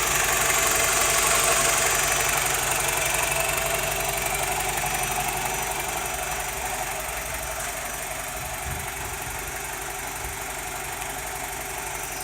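BMW E87 120i four-cylinder petrol engine running with a rattle that sounds like a diesel, the cause of which the owner cannot find. It gradually gets quieter over the first eight seconds or so, then holds steady.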